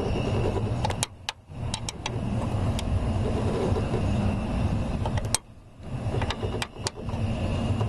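A steady low rumble with a few scattered sharp clicks as a hand wrench works loose the bolts of a car door's hinges. The rumble drops out briefly twice.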